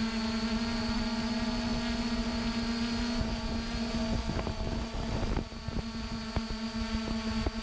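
A steady motor hum with wind rumbling on the microphone and a few scattered knocks in the second half.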